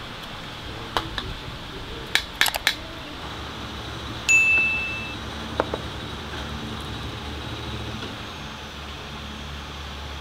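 Metal ladle and tongs clinking against a cooking pot and bowl as noodles are dished up: a few sharp clicks, then about four seconds in one loud clear ring of struck metal that fades over most of a second, followed by two light clicks. A steady low hum runs underneath.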